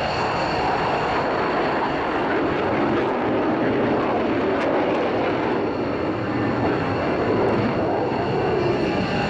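Steady, loud jet noise from a JASDF F-15J Eagle fighter's twin turbofan engines as it flies over.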